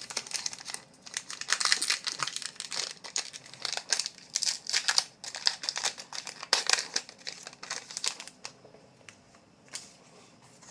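Plastic wrapper of a trading card pack being crinkled and torn open by hand, a dense crackling that dies down about eight and a half seconds in, leaving a few faint clicks.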